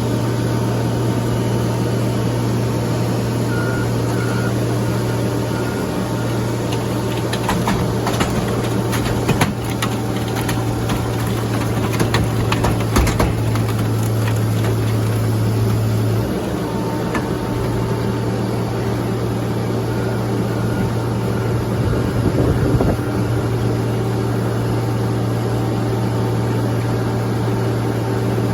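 A heavy machine's engine running steadily with a deep, even hum, with scattered metallic clanks and knocks in the middle stretch and again a few seconds before the end.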